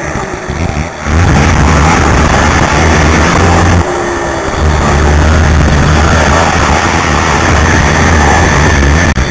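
Racing ATV's engine run hard at high revs, heard loud from a camera on the rider's helmet. The throttle eases off in the first second and again about four seconds in, then the engine pulls hard again.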